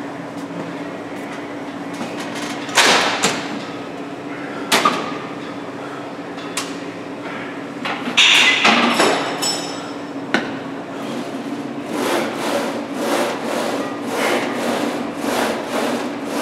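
Plate-loaded 45-degree leg press clanking as it is handled and used: a few sharp metal knocks, a burst of clattering about eight seconds in, then a quick regular run of strokes from about twelve seconds in as the sled is worked.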